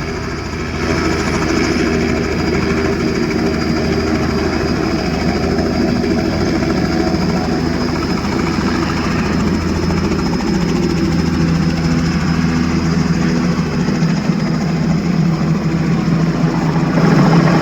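Robinson R66 helicopter running on the ground: its turbine engine and rotor turn steadily, with a high steady whine over a low drone. It grows a little louder near the end.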